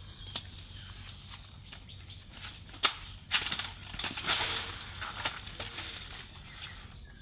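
A banana plant being cut: a sharp blade strike a little under three seconds in, then a stretch of rustling and crunching from the fibrous stem and leaves, with a few lighter strikes.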